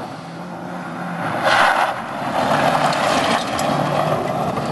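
Rally car's engine running hard at full throttle on a loose gravel stage, its pitch stepping down a few times. A loud hiss of tyres spraying gravel rises about one and a half seconds in, with a few sharp ticks of flung stones.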